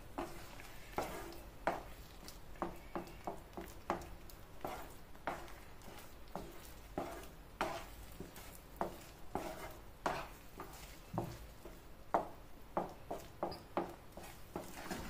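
Wooden spatula stirring and scraping thick semolina kesari around a non-stick pan, in short strokes about one to two a second.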